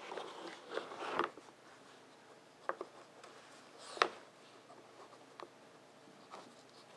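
Wooden blocks of a Nina Ottosson Dog Fighter puzzle board knocking and scraping as a Boston terrier noses at them: a few light clicks, with one sharper wooden knock about four seconds in. A short rustle comes near the start.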